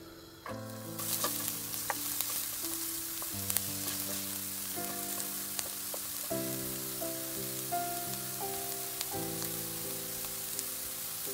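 Diced onions sizzling in hot oil, the hiss starting suddenly about a second in and carrying on as a wooden spoon stirs them, with scattered small ticks. Soft background music plays underneath.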